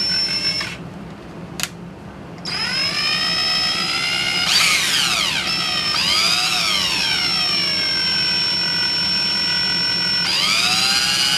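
Electric drill running in reverse to wind the blind rivet adapter's chuck jaws open. After a short blip of the trigger, the motor whines for a long run, slowing and picking back up twice before holding a steady speed.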